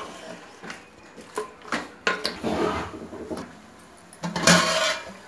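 Wooden spatula stirring chicken in an aluminium pot, with scattered knocks and scrapes against the pot. Near the end the aluminium lid clatters onto the pot, and its metal rings; this is the loudest sound.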